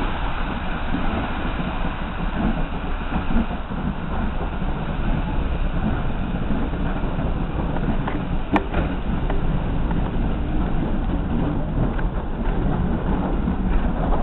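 Steam train pulling out of the station, its coaches rolling past on the rails amid hissing steam, as a steady, loud rumble. One sharp click sounds about eight and a half seconds in.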